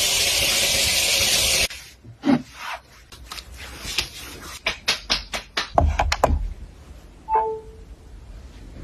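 A loud, steady hiss cuts off abruptly near the start, followed by a quick run of light clicks and taps from household items being handled, with a few dull knocks and a brief high tone near the end.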